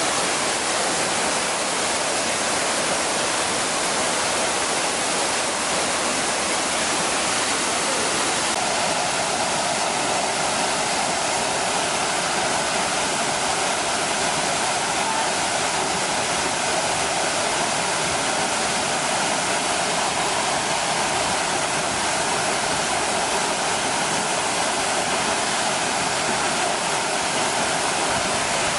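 Waterfall: falling water crashing steadily in a continuous, even rush.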